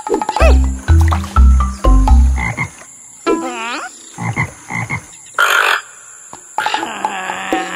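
Cartoon frog croaking: several deep, loud croaks one after another, followed by a wavering pitched sound and a short noisy burst, then more busy croaking near the end.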